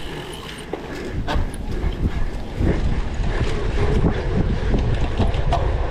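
Cyclocross bike ridden hard over rough ground: wind rushing over the microphone, with a run of rattles and knocks from the bike.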